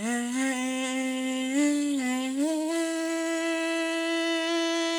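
A person's voice sustaining a wordless tune in long, steady held notes. It steps up in pitch twice, and the last and highest note is held for more than two seconds.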